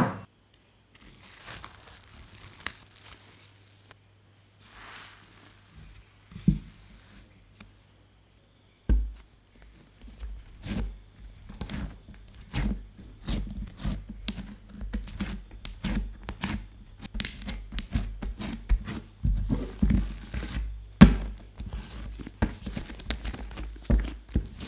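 Soft yeasted bread dough being kneaded by hand on a silicone baking mat: a dense, irregular run of dull thumps and small clicks starting about nine seconds in. Before that there are only a few faint rustles and a single thump.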